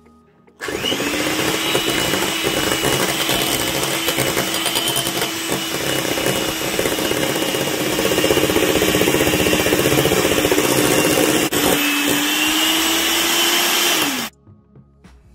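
Electric hand mixer whipping double cream with powdered sugar in a glass bowl until thick: a steady motor whine that starts about half a second in, dips briefly near the end, then falls in pitch as it switches off.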